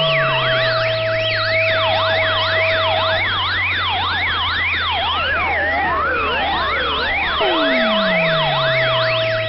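Buchla and Eurorack modular synthesizer voices: several tones sweep rapidly up and down in sharp zigzags like sirens, over held tones and a steady low drone. Near the end a tone glides down into the low drone and a held middle tone comes back in.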